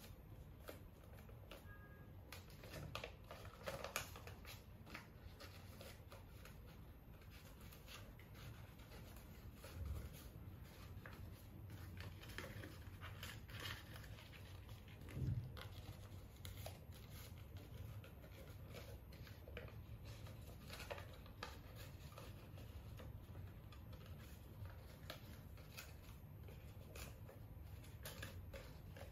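Faint rustling and crinkling of paper being folded and creased by hand, with scattered small clicks and a few soft thumps, the loudest about fifteen seconds in.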